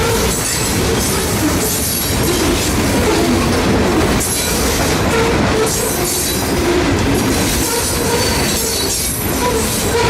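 Freight train rolling past, its wheels rumbling and clattering on the rails with wavering wheel squeal.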